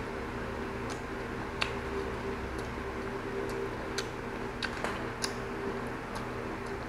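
A person chewing food with the mouth closed, with scattered soft mouth clicks and smacks at irregular intervals, over a steady low hum.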